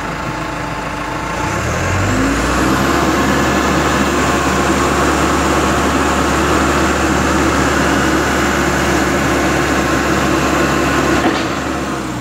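Box truck's engine idling, then revving up about two seconds in and holding at a steady higher speed before dropping back near the end.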